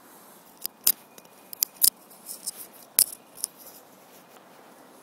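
About ten irregular sharp clicks and snaps in the first three and a half seconds, three of them much louder than the rest, then only a faint steady hiss.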